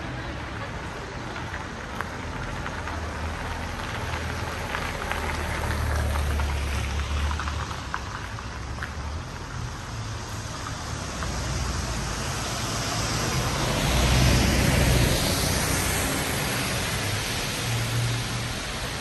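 City street ambience: a steady hiss over a low, uneven rumble, swelling to its loudest about fourteen to sixteen seconds in, with a few faint clicks in the first half.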